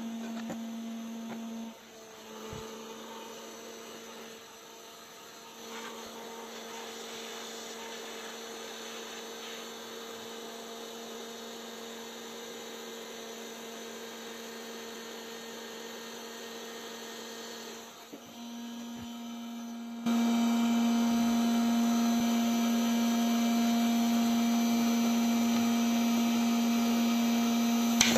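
Hot-air plastic welding gun running, a steady electric hum from its blower as it melts ABS filler rod into a crack. The hum gets markedly louder about two-thirds of the way through.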